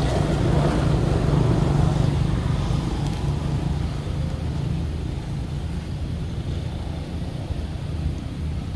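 Steady low rumble of wind buffeting the microphone, with a fainter hiss above it.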